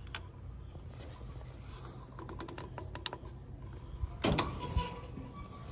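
Steel lift-gate hardware on a work truck being handled: a quick run of light metallic clicks, then a sharp metal clank a little after four seconds in with a short ring, and a smaller knock just after. A low steady hum runs underneath.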